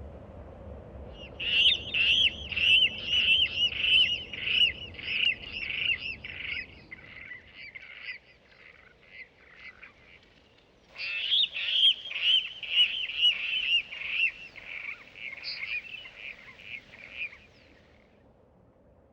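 Water rail giving its squealing pig-like call: two series of loud squealing notes, about two a second. Each series starts abruptly and tails off, the second starting about halfway through.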